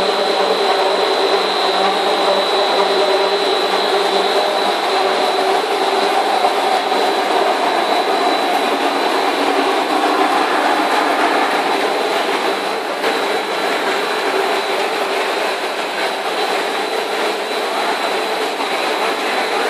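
Corn puff snack extrusion line machinery running steadily, with a thin high whine over a continuous mechanical hum.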